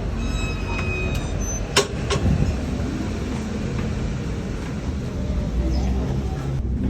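Steady low rumble of road vehicle noise, with a brief high tone about half a second in and a sharp click nearly two seconds in.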